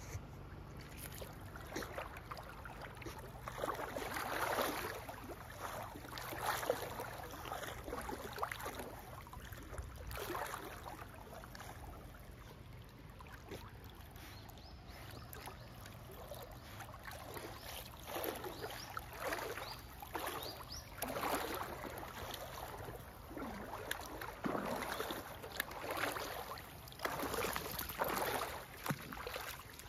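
A corgi swimming in a shallow river, its paddling making water splash and slosh in irregular bursts.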